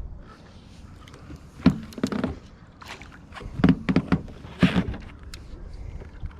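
A run of sharp knocks and thumps on a fishing boat's hull or deck, in small clusters about a second or two apart.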